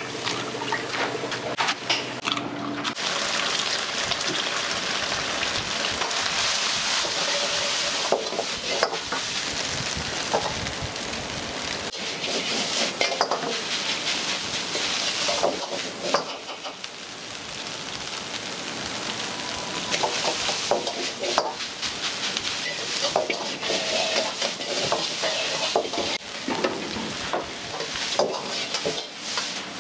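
Food sizzling in a wok, with the metal ladle scraping and clanking against the pan in irregular strokes.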